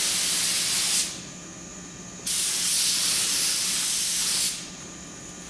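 Compressed-air paint spray gun hissing in two long bursts as black paint is sprayed on: the first stops about a second in, the second runs from a little past two seconds to about four and a half seconds.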